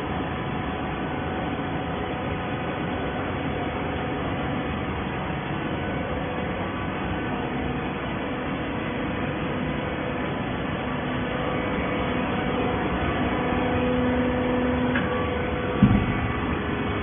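Hydraulic carton baler running: a steady machine drone with a steady hum in it, the hum growing stronger for a couple of seconds in the second half, then a single sharp knock near the end.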